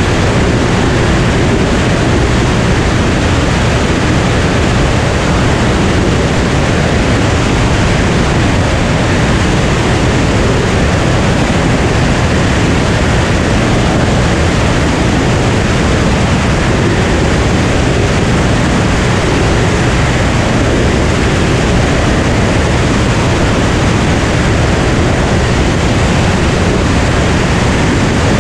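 Cirrus SR22 single-engine propeller plane in steady cruise, heard from outside in the airflow: a loud, unbroken rush of wind over the microphone with the low drone of the piston engine and propeller beneath it.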